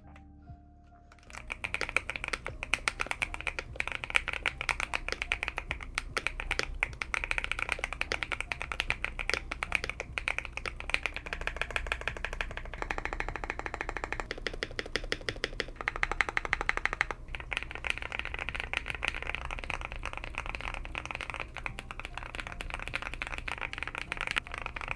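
Continuous typing on an Epomaker TK68 mechanical keyboard fitted with hand-lubed Akko Cream Blue tactile switches and POM jelly keycaps. The board is tape- and memory-foam-modded for a deeper, thockier sound. Rapid overlapping keystrokes start about a second in.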